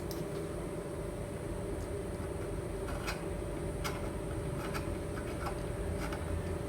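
A steady hum and hiss, with a constant tone and a low rumble, broken by about half a dozen light clicks spread through the middle.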